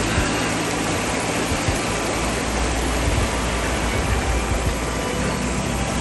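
Shallow mountain stream rippling over and between flat rocks: a steady, even rush of water.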